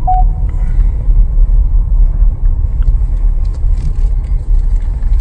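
Steady low rumble of engine and road noise inside a Ford Bronco's cabin as it drives slowly on a wet surface. Right at the start, the last note of a short electronic chime melody fades out.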